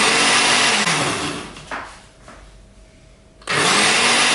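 A loud whirring like a small electric motor, running in two bursts: it winds down about a second in and cuts back in suddenly about three and a half seconds in.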